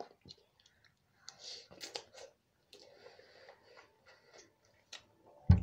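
Close mouth sounds of someone eating noodles: scattered clicks and short chewing noises, with one loud bump near the end.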